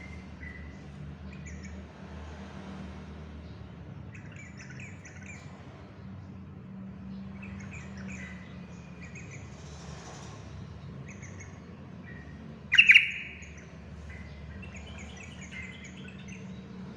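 Yellow-vented bulbul (trucukan) singing in short, quick chirping phrases, the sharp voice that bird keepers call 'pedes'. One much louder sudden burst comes about thirteen seconds in, over a steady low hum.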